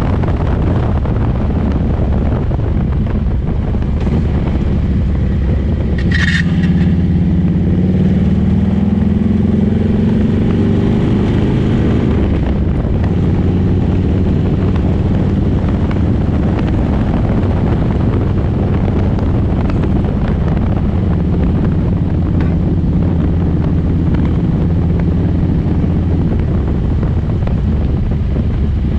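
Motorcycle engine running on the road, with wind rushing over the microphone. About six seconds in there is a brief high chirp. The engine note then rises steadily for several seconds as the bike accelerates, and settles back to a steady cruising note.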